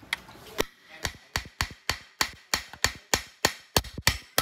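Iron hammer tapping lightly and repeatedly on the aluminium engine case of a Honda Dream, about fifteen sharp taps at three to four a second, to knock a stuck case part loose.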